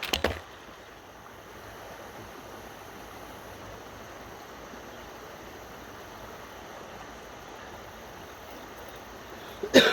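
Steady rush of river water flowing. There are short bumps or rustles in the first moment and a louder one just before the end.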